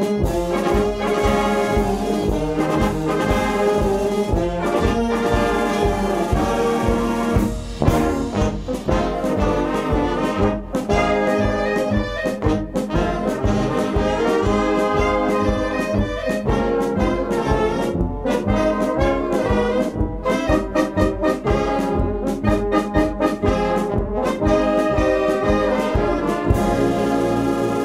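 Wind band playing, with brass and reeds carrying the tune over tuba and a steady beat in the bass.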